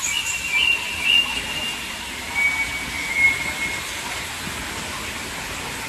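Steady hiss of heavy rain, with faint thin high tones in the first few seconds.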